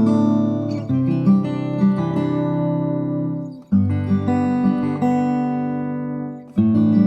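Acoustic guitar music: ringing chords, with a new chord struck about every three seconds and left to fade before the next.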